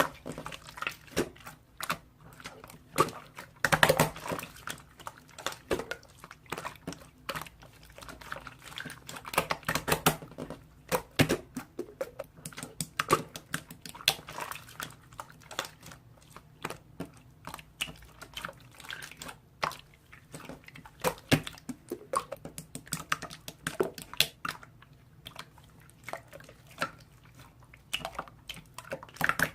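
Irregular small taps and clicks, several a second, over a faint steady low hum.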